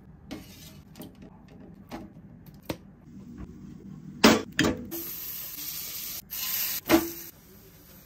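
Cooking sounds: a spatula scraping and tapping against a pan several times, then two loud clanks of the pan. After that comes about two seconds of frying sizzle with another clank near the end.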